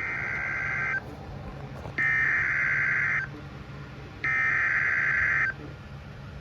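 Emergency Alert System SAME header: three bursts of warbling two-pitch data tones, each a little over a second long with about a second between them. The header is the digital code that opens an EAS severe thunderstorm warning.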